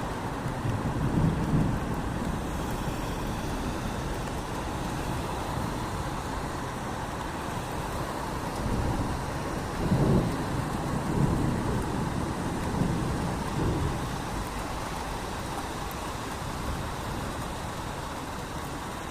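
Steady rain falling on a city street, with low rolls of thunder about a second in and again from about ten to fourteen seconds in.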